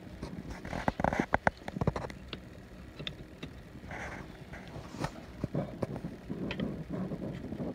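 Scattered metallic clicks and knocks from a Hirth 2702 engine's flywheel and its fittings being handled and shifted by hand, with a quick flurry about a second in.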